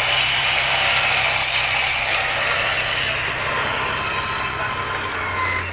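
Off-road 4x4's engine idling with a steady low hum, under a steady hiss.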